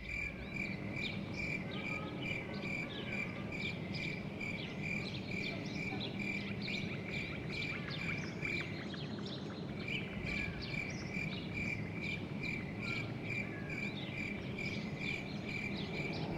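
An insect chirping steadily, a high chirp about two and a half times a second that breaks off briefly about halfway through, over scattered higher chirps and a faint low rumble: an evening outdoor ambience.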